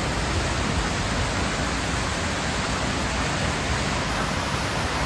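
Ornamental water fountains splashing: a steady, even rush of water.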